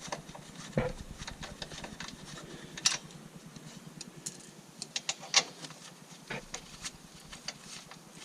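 Metal hand tools working on the sway bar's 12 mm bolts: scattered, irregular sharp clicks and clinks, with a cluster of them about five seconds in.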